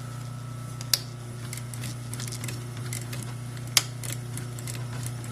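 Light handling clicks and ticks over a steady low hum, with two sharper clicks, about one second in and near four seconds in.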